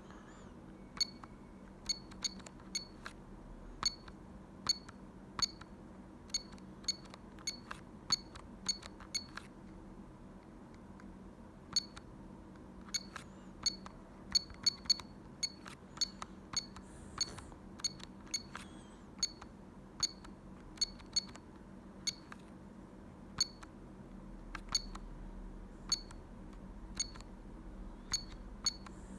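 Keys on a Telecom Italia Tech New Master mobile phone pressed one at a time, each giving a short click with a brief high beep, at irregular intervals of about a second, some in quick runs, while stepping through the phone's menu toward the ringtones. A faint steady hum sits underneath.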